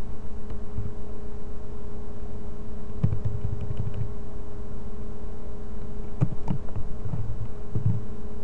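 A few scattered clusters of computer keyboard keystrokes over a steady electrical hum.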